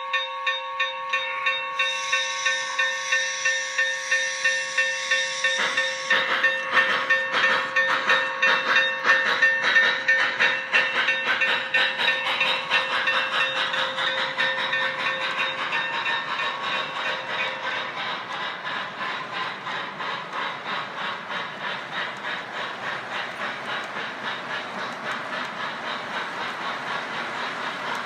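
Onboard sound system of an MTH RailKing Union Pacific Big Boy 4-8-8-4 O-gauge model locomotive with Proto-Sound 3.0. A steam whistle blows and steam hisses, then rhythmic chuffing starts about six seconds in and quickens as the train gets under way, over the rolling of the cars on the track.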